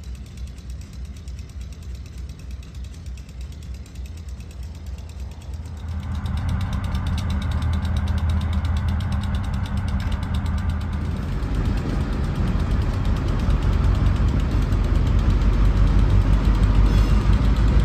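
Diesel freight locomotives running, their engines and the train growing steadily louder as three units approach and near the camera. A quieter low, steady engine rumble comes first and gives way abruptly to the louder locomotive sound about six seconds in.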